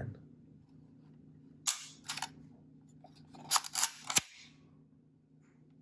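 Sharp mechanical clicks from a Kodak Instamatic X-35 camera as it is worked and the shutter fired: two clicks a little under two seconds in, then a quick cluster of four or five clicks about a second and a half later.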